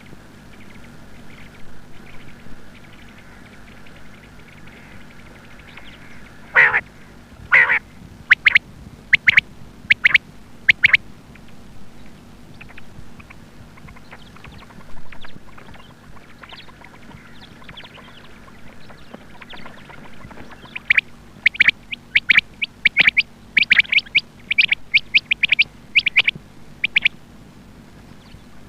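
Female quail calling: two downward-sliding calls, then a few short sharp notes, and after a pause a quick run of short calls at about two or three a second. A faint steady hum runs underneath.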